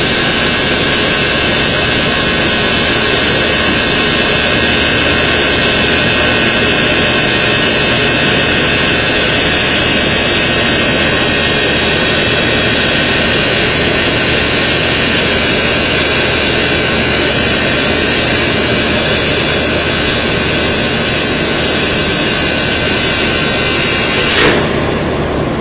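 Seam welding machine running steadily and loudly through a weld, with a dense mix of hum and hiss. It cuts off suddenly near the end.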